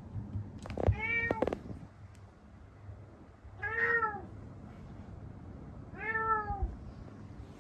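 A domestic cat meowing three times, a couple of seconds apart, each meow rising and then falling in pitch. A few short sharp clicks come with the first meow.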